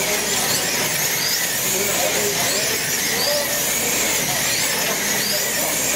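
Electric motors of wing slot cars whining high as the cars lap the track, each whine rising and falling, again and again, over a steady hiss and background chatter.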